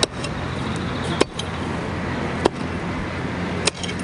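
Pickaxe striking into gravel ground while digging a hole: four sharp blows, about one every second and a quarter.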